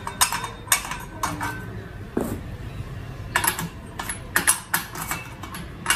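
Irregular metal clicks and clinks as a box spanner is fitted over the mounting nut of a STIHL brush cutter's metal blade and cup, some of them ringing briefly.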